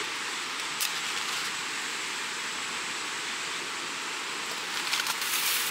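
Steady rushing of a fast mountain stream close by. A light click sounds about a second in, and a short scuffling noise near the end as a hand works at a small stainless wood stove.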